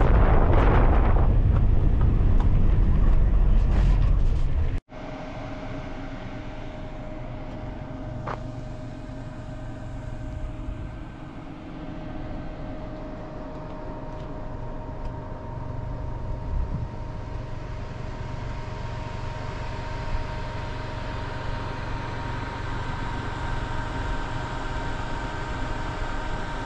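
Wind buffeting the microphone of a moving car, loud and rumbling, for about five seconds, then cutting off abruptly. After that comes the steadier, quieter running noise of the car on the road, engine and tyre rumble with a faint steady whine.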